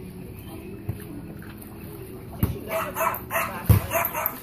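Yorkshire terrier yapping, a quick run of short barks starting about halfway in, with a couple of dull thumps among them.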